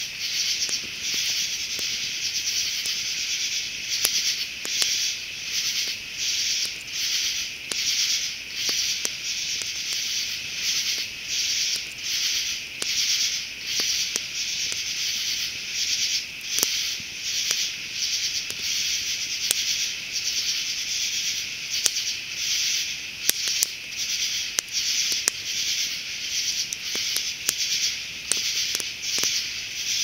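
Insect chorus: a high-pitched buzzing that pulses evenly, a bit more than once a second, with a few sharp clicks scattered through it.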